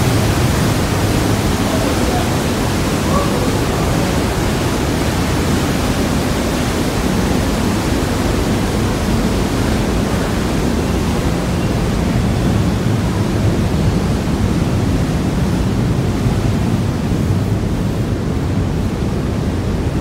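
Waterfall rushing, a loud, steady, even noise heard from inside a rock tunnel.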